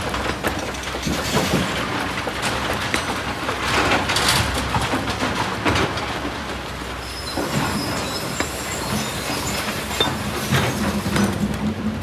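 Kobelco SK200 hydraulic excavator at work: its engine runs steadily under load, with repeated knocks and clanks of metal and rock throughout. A thin, high squeal comes in about halfway through and lasts a few seconds.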